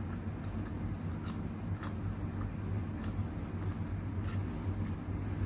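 Steady low hum of an electric fan running, with a few faint clicks from chewing and a fork.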